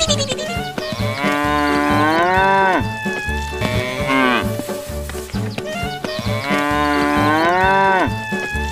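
A cow mooing: two long, drawn-out moos, the second starting about six seconds in, each falling in pitch at its end, dubbed over background music with a steady low beat.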